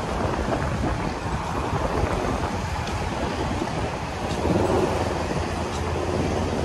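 Road traffic noise mixed with wind. A vehicle's engine grows louder about four and a half seconds in and keeps running.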